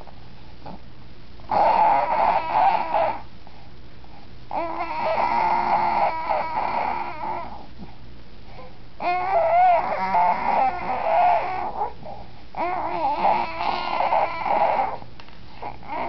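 A seven-month-old baby making strange, high-pitched, wavering vocal noises in four long drawn-out stretches, with short pauses between them.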